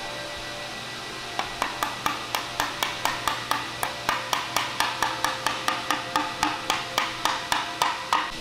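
Rapid, even taps of a wooden mallet, about four light blows a second, starting about a second and a half in.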